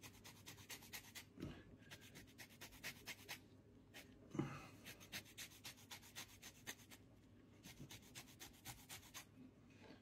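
Lemon being zested on a fine metal hand grater: faint, quick rasping strokes of rind over the grater teeth, several a second. A soft thump about four and a half seconds in.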